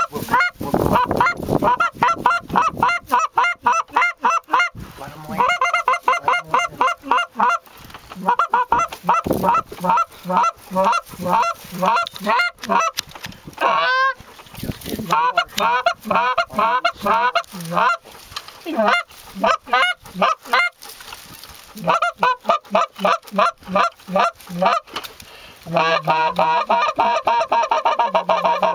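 Canada goose honks and clucks, loud and fast in runs broken by short pauses.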